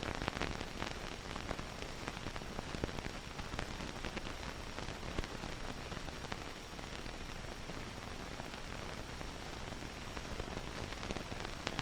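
Steady hiss with scattered crackles and pops, the surface noise of an old film soundtrack.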